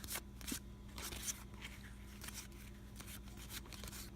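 Game cards being handled and flipped through: light, scattered clicks and rustles of card stock, over a faint steady hum.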